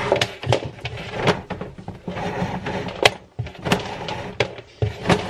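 Handling noise as an electrical cable is pulled through a wardrobe, scraping against the chipboard panels, with scattered knocks and clicks throughout.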